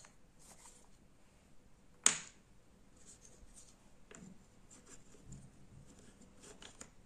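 Wooden jigsaw puzzle pieces handled and fitted together on a wooden tabletop: one sharp click about two seconds in, then faint scattered taps and scrapes.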